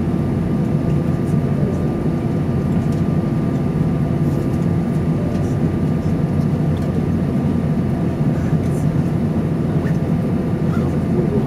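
Airbus A320 cabin noise during taxi: the engines run at idle as a steady low rumble, with faint steady tones above it.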